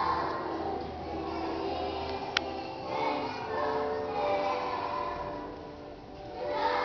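A choir singing a song with long held notes, heard from far back in a large church. A single sharp click sounds about two and a half seconds in.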